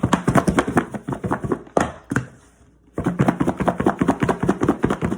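Raw chicken wings tumbling and knocking inside a lidded tub being shaken hard to coat them in baking powder and salt: a fast, loud clatter in two bouts with a short pause between.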